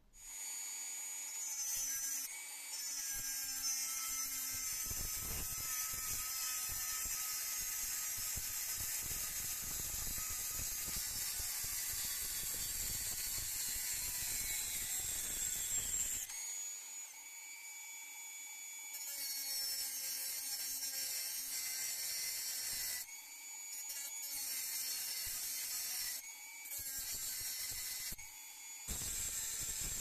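High-speed rotary tool with an abrasive cut-off disc cutting a metal knife part held in a vise: a steady high-pitched whine, broken by several abrupt changes in pitch and level in the second half.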